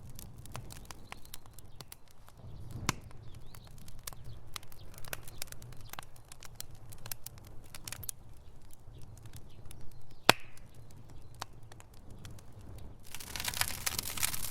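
Fire in a fireplace crackling, with irregular sharp pops over a low steady rumble. One sharp pop about ten seconds in, and the crackle turns denser and hissier near the end.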